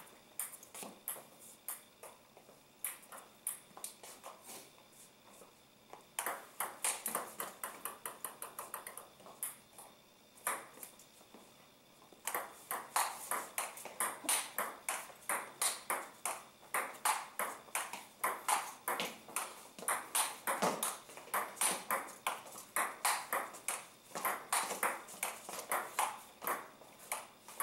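Table tennis ball clicking off the paddles and the table in fast back-and-forth rallies, a quick run of sharp ticks with a short break about eleven seconds in.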